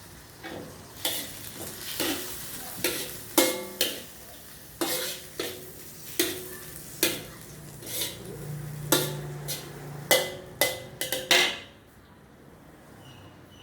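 Fried rice sizzling in a wok while a metal spatula stirs and scrapes it, striking the pan over and over with short ringing clangs; the strikes stop near the end.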